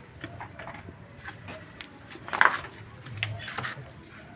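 Metal parts of a dismantled Hyundai Santa Fe automatic transmission clinking and knocking together as they are handled. One louder clank comes a little past halfway.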